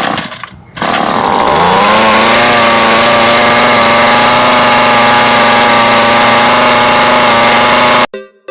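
Ryobi gas string trimmer engine starting. There are two short rattling bursts, then about a second in the engine catches. It revs up over the next second and runs steady at high speed until it cuts off suddenly near the end.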